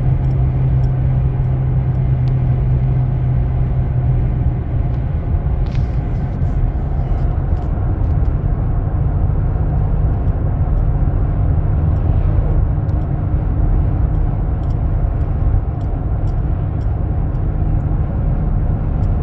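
Cabin noise of a Chevy Colorado pickup cruising at highway speed while towing a car: steady low engine and road rumble. A low hum stands out over it at first and drops away about four seconds in.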